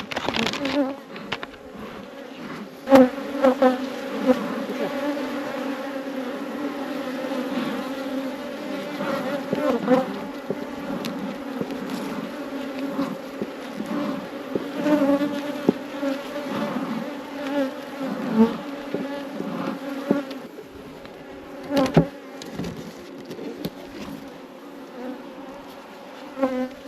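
Honey bees buzzing in a steady hum around an opened hive. A few sharp knocks of hive parts come about three seconds in, at about twenty-two seconds and near the end.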